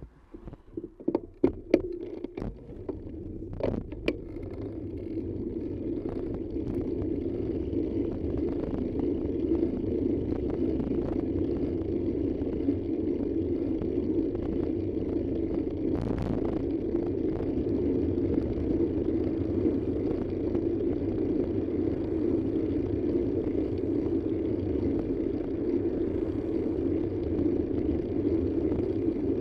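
Driving noise of a moving vehicle, engine and road rumble, growing louder over the first several seconds and then holding steady. A few sharp clicks and knocks sound in the first few seconds.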